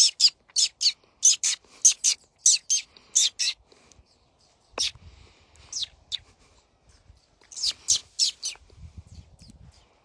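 Florida scrub-jay calling: a quick series of short, sharp high notes, often in pairs, with a lull about four seconds in and a last quick run of four notes near the end.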